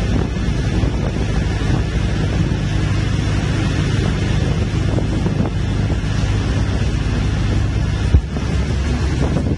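Bus engine running steadily with road noise, wind buffeting the microphone at the open window. There is a brief thump about eight seconds in.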